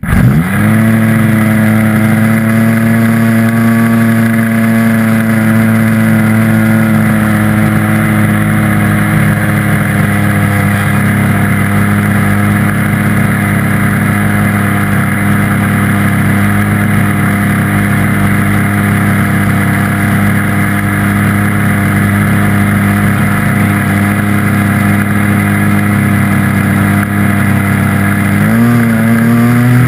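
An RC model airplane's small engine, heard close up, catches and comes up to speed, then runs steadily at one throttle setting. Near the end it is throttled up and rises in pitch as the plane begins its takeoff roll across the grass.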